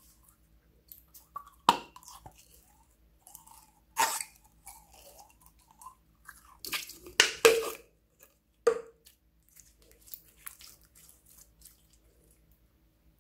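Clear slime being squeezed out of a plastic tube and kneaded by hand, giving wet, sticky squelches, clicks and pops of trapped air. A few louder pops come in the first nine seconds, then only soft crackling.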